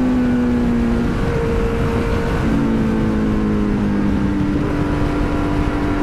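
Kawasaki Z900's 948 cc inline-four engine running hard in first gear, its pitch easing slowly down and shifting about two and a half seconds in, with a steady rush of wind over it.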